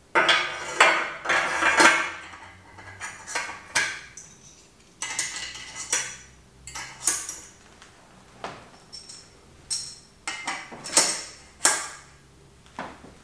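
Metal bicycle parts clinking and scraping as a fork's steerer tube is slid up through the headset and a stem is fitted onto it. It is a string of some twenty sharp clinks and knocks, several with a short high ring.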